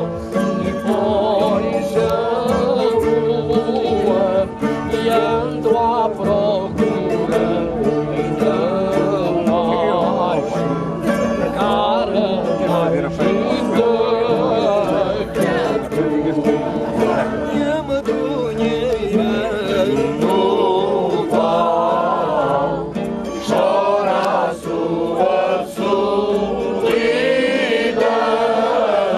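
A group of voices singing a traditional Alentejo folk song (cantares alentejanos) with instrumental accompaniment.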